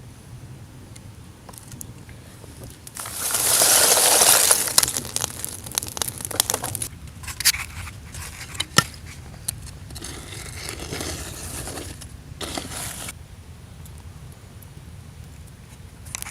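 Crunching and scraping of brittle material: a loud crunching scrape about three seconds in, then scattered sharp clicks and softer scraping near the middle and later.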